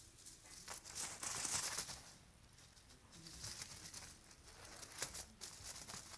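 Kitten scrabbling and pouncing at a fringed fabric throw and toys: rustling and scratching with light taps, loudest about a second in.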